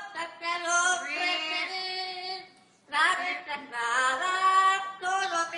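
Amazon parrots singing in a human-like voice: melodic sung phrases with sliding pitch, broken by a short pause about two and a half seconds in.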